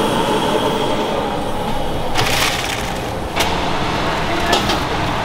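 Hot oil crackling and sizzling in a kadhai as a batch of batata vadas is lifted out in a wire strainer. The hiss swells for about a second a couple of seconds in, with a few sharp clicks after it.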